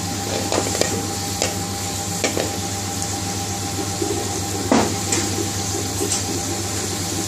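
Chopped garlic sizzling in hot vegetable oil, frying toward slightly golden brown as the base of a tarka. Small crackles run through it, with one sharper click about four and a half seconds in, over a steady low hum.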